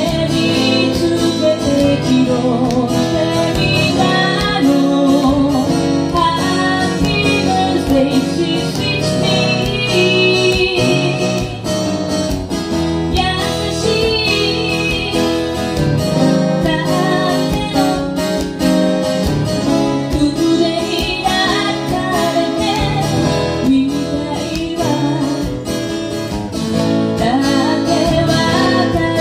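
A song sung to guitar accompaniment: a singing voice carries the melody over a strummed guitar.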